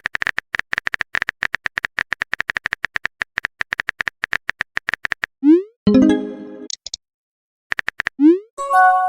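Rapid phone-keyboard typing clicks for about five seconds, then a rising whoosh and a short chime as a text message is sent. A few more clicks follow, then another whoosh and a chime with held tones near the end.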